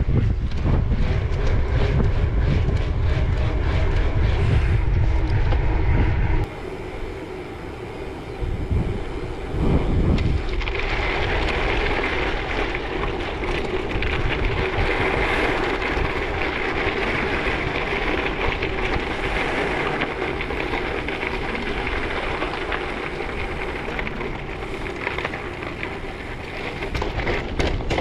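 Wind buffeting the microphone of a camera riding on a bicycle: a heavy rumble that cuts off suddenly about six seconds in, followed by a steady hiss of riding noise.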